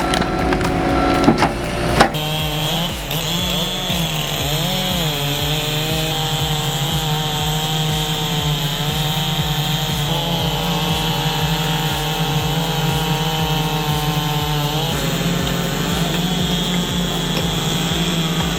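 Wheel-loader-mounted firewood processor working logs: a few sharp wooden knocks in the first two seconds, then the machine's engine and hydraulic saw drive running steadily while it cuts, the pitch dipping briefly around four to five seconds in.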